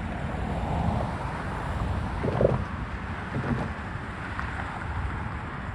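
Low steady rumble of a vehicle with wind buffeting the microphone, and a brief louder bump near the middle.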